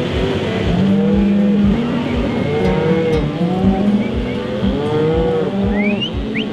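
Several cattle mooing, with long overlapping calls, over background music with a steady low beat.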